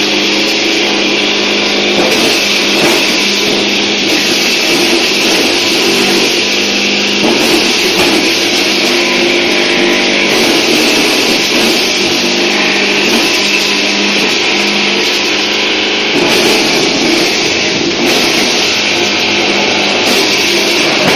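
Small electric corn sheller running steadily under load, ears of corn being fed through it: a constant motor hum under a dense rattling hiss of kernels and cobs passing through the machine.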